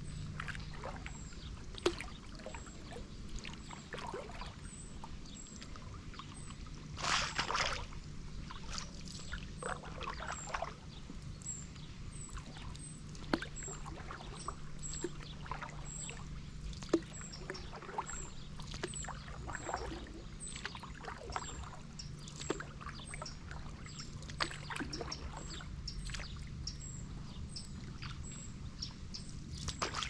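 Paddle strokes in calm river water around a stand-up paddle board: irregular drips, small splashes and light knocks, with one louder splash about seven seconds in.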